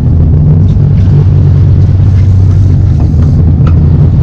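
Sportfishing boat's engine running, a loud steady low rumble.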